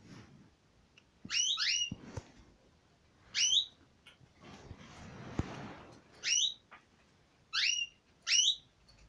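Canary giving short rising whistled calls, about six in all, some in quick pairs, with a soft rustling noise about halfway through.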